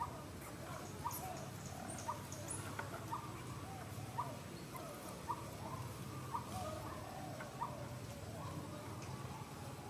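An animal's short call repeating about once a second, with wavering lower calls in between, over a steady outdoor background.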